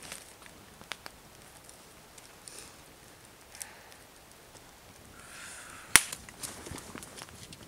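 Scattered light clicks and snaps, with a brief rustle just before one sharp crack about six seconds in, the loudest sound, followed by a few smaller clicks.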